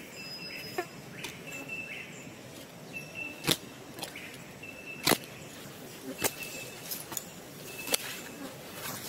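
Forest ambience with a short, high, level chirp repeating every second or two, and several sharp clicks, the loudest about three and a half and five seconds in.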